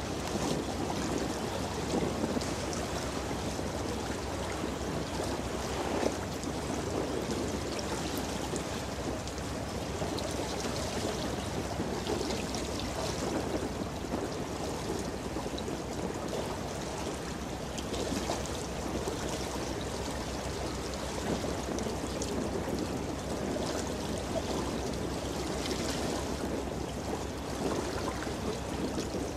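Rushing, churning water of a container ship's wake surging along a concrete riverbank, a steady noise with no engine tone standing out.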